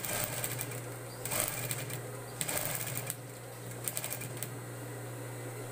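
Industrial sewing machine stitching in four short stop-start bursts over the steady hum of its motor, then only the hum for the last second or so.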